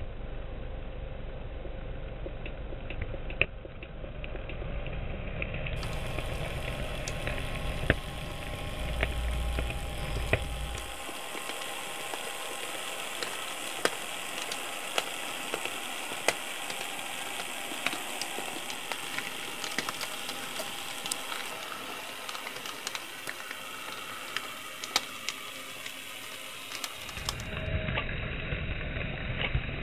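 HO-scale Shay model locomotive running: a steady mechanical whirring and hiss from its small motor and gearing, with frequent small sharp clicks from the wheels and drive on the track.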